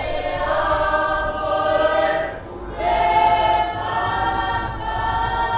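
A group of voices singing together in a Cook Islands kapa rima action song, holding long sung notes. There is a brief break about two and a half seconds in before the singing resumes.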